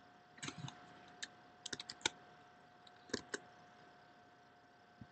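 Faint, scattered clicks of a computer mouse and keyboard, in small groups of one to four with pauses between, over a faint steady electrical hum.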